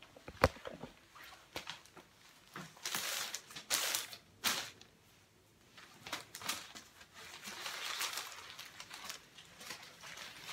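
Paper strips of a dictionary-page tutu rustling and crinkling as the skirt is handled and pinned, in short irregular bursts, with a few sharp clicks in the first half second.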